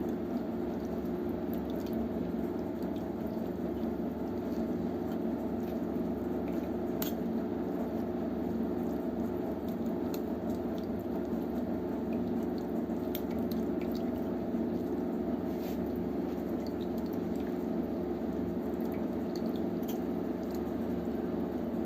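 Water bubbling steadily in a pot on the heat, with a few faint clicks.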